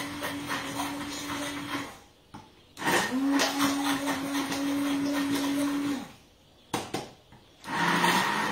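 Handheld immersion blender puréeing an avocado sauce (avocado, cherry tomatoes, oil, lemon) in a bowl, its motor humming steadily. It stops about two seconds in and starts again a second later, running for about three seconds. A short, louder sound follows near the end.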